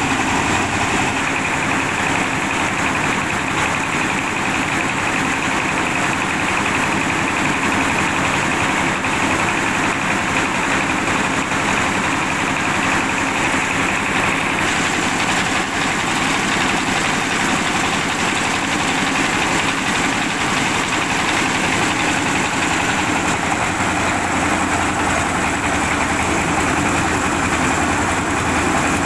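Engine-driven mobile rice mill running steadily and loudly while it mills rice.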